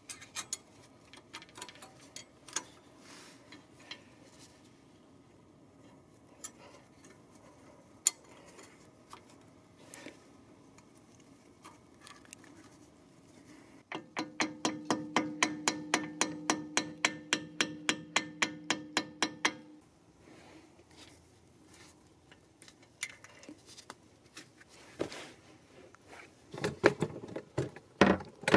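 A small hammer tapping a brake pad retaining pin into a Mercedes-Benz AMG front brake caliper: a quick, even run of light metallic taps, about five a second and each with a short ring, lasting about five and a half seconds. Before it come scattered metal clinks of the pad retaining bracket being handled and fitted, and there is more clatter near the end.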